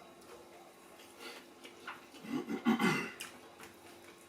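Quiet eating sounds, soft wet smacks and clicks of food being eaten by hand. About two seconds in comes a brief pulsing vocal sound lasting about a second.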